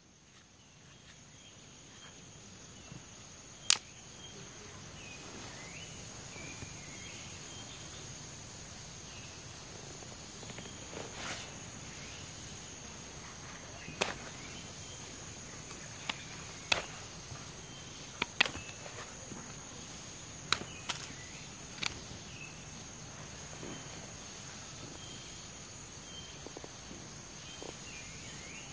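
Scattered sharp knocks of a machete blade striking wooden sticks, about ten in all, the loudest near the start and most bunched in the middle. Under them, a steady high drone of crickets or other insects.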